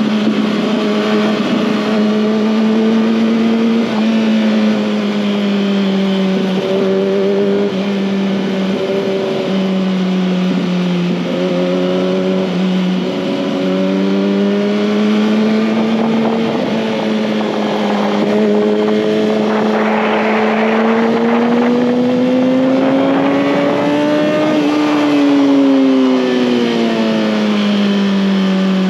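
Kawasaki ZX-6R sportbike's inline-four engine running while riding, its pitch drifting gently up and down with the throttle. It climbs steadily to a peak about 25 seconds in, then drops off.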